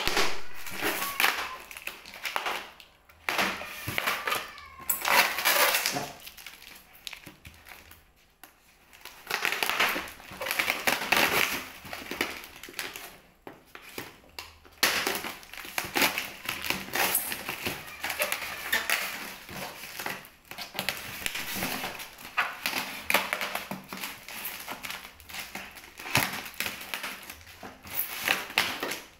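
A knife sawing through a polystyrene foam box, scraping and squeaking in repeated bursts a second or a few long with short pauses between.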